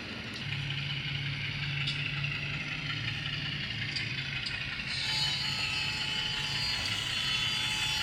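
Digital sound decoder of an HO-scale CC206 diesel locomotive model playing its engine sound through a small speaker: a steady low engine hum sets in about half a second in, and a brighter high hiss and whine joins about five seconds in.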